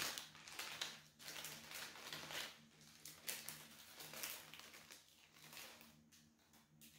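Packaging being handled and opened by hand: irregular soft rustling and crinkling, busiest in the first few seconds and thinning out near the end.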